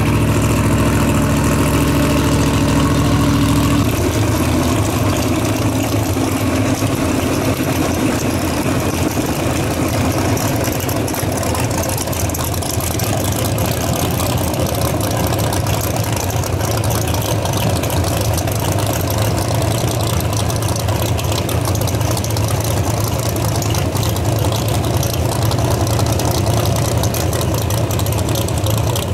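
Drag-racing Firebird's engine idling loud and choppy, with a deep rumble. For the first four seconds or so a different engine holds a steady note, before it cuts to this one.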